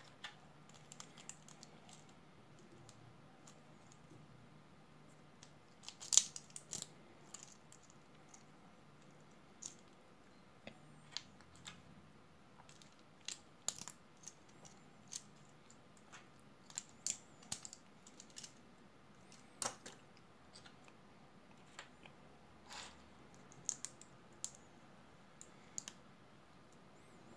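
Plastic LEGO bricks clicking and clacking: pieces picked from a loose pile on a wooden tabletop and snapped together, in irregular sharp clicks, the loudest about six seconds in.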